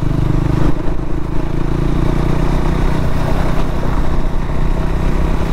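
KTM Duke 390's single-cylinder engine running at a steady cruise, with wind buffeting the microphone.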